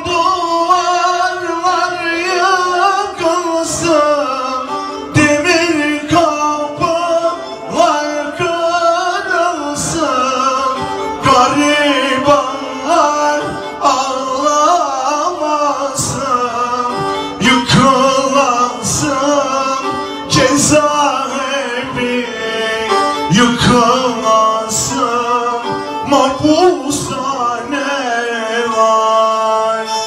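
Live Turkish folk music: a bowed kemane and a clarinet play a gliding melody over irregular davul drum strikes.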